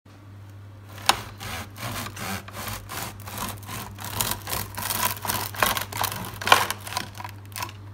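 Serrated bread knife sawing back and forth through the crust of a loaf of siyez sourdough bread on a wooden bread board, a quick run of rasping strokes with a couple of sharper crunches.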